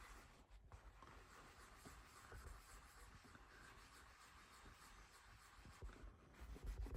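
Faint rubbing of a rag wiping brake cleaner and paint off a subwoofer's dust cap, with a few soft low bumps near the end.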